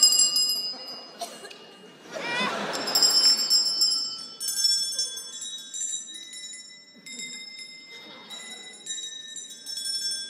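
High, clear bell-like chimes ringing, struck notes coming in irregular clusters and fading, with a short warbling sound about two seconds in.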